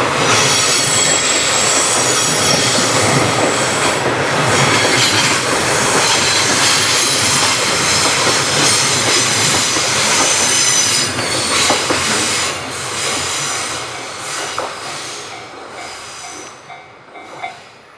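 JR Freight freight train passing, its wheels squealing in thin high tones over the rumble of the wagons. About eleven seconds in the sound starts to fade, and it has nearly died away by the end.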